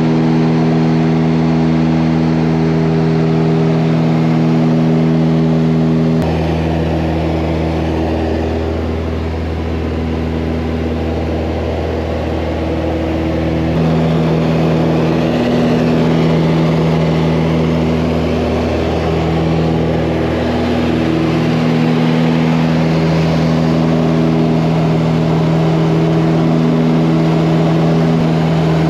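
Propeller aircraft engine drone heard inside the cabin in flight: a steady hum at one constant pitch over a rushing noise. Its balance shifts abruptly about six seconds in and again about fourteen seconds in.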